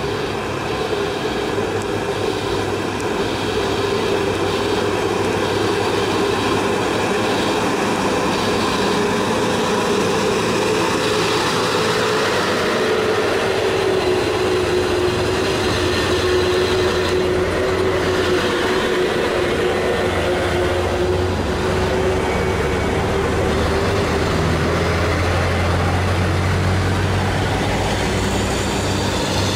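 Heavy loaded diesel dump trucks climbing a hill under load, their engines running with a steady drone as a Mitsubishi Fuso dump truck passes close. Near the end another truck's deep low rumble grows louder.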